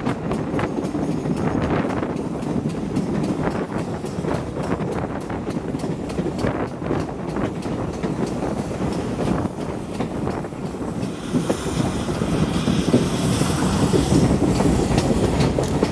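Steam-hauled passenger coaches running along the track, heard from an open carriage window: a steady rumble with repeated clicks of the wheels over the rail joints, and wind on the microphone. About eleven seconds in a high hiss joins and the sound grows a little louder.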